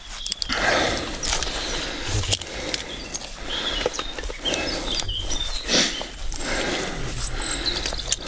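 Rope-climbing gear, rope and clothing rustling and scraping in uneven surges as a caver hauls himself up the last of the shaft, with a few short bird chirps.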